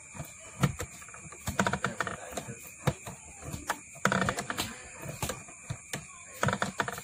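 Coil winder turning a transformer bobbin while enamelled copper wire is wound on, giving a run of irregular light clicks and ticks.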